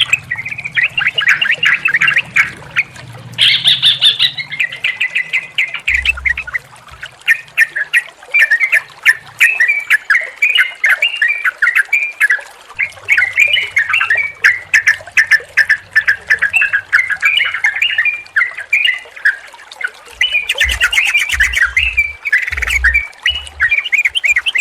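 Yellow-vented bulbuls chattering in quick, bubbly runs of short chirps, almost without a break, with a few low thuds now and then.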